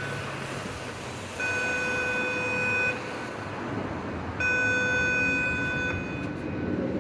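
Simplex 4100ES voice-evacuation outdoor speaker sounding a steady alarm tone, about 1.5 s on and 1.5 s off, twice: the slow 20-beats-a-minute pattern of a first-stage alert signal.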